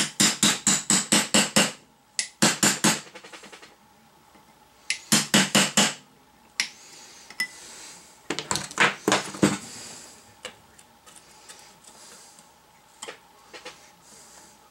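Ball-peen hammer striking a steel punch against the rusty steel of an old Datsun pickup's front suspension. The strikes ring sharply and come in four quick runs of about four to eight blows at roughly five a second, followed by a few lighter scattered taps near the end.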